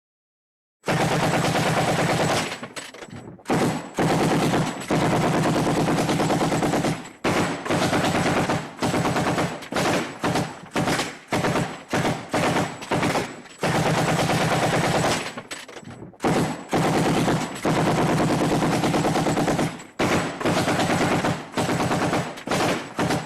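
M60 machine gun firing in bursts of rapid fire, some long and some short, with brief pauses between them.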